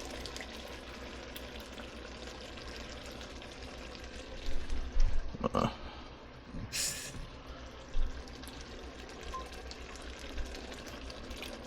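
Tomato passata being poured into a pot of meat sauce cooking on the stove, with a steady sizzle underneath, a few knocks of the container about halfway through and a short splash of water near the middle as the container is rinsed.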